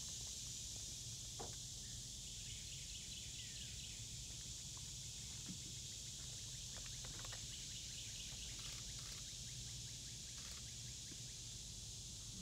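Faint outdoor ambience: a steady high-pitched hiss over a low rumble, with a few soft clicks and a brief bird chirp.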